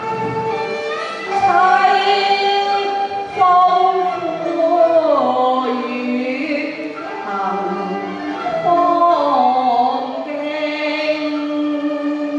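Cantonese opera song (yuequ) sung with instrumental accompaniment: long held, wavering vocal notes that slide down in pitch, about five seconds in and again about nine seconds in.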